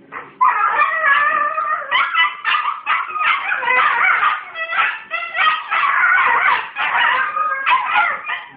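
Australian Cattle Dog making dingo-like howling sounds: a long run of loud calls whose pitch bends and wavers up and down, broken by short pauses.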